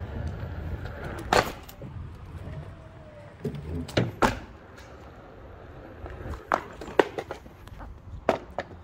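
A Onewheel board rolling over pavement, picked up by a handheld phone: a steady low rumble broken by several sharp clicks and knocks.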